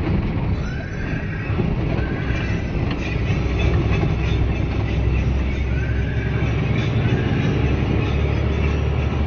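Sleeper bus under way, heard from inside the cab: a steady low engine drone with road noise that stays even throughout.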